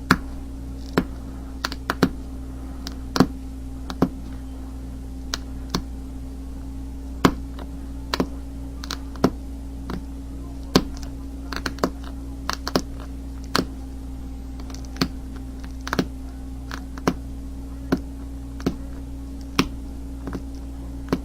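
Flint being pressure-flaked with a brass rod: sharp, irregular clicks as small flakes snap off the edge while saw teeth are notched in, about one click a second. A steady low hum runs underneath.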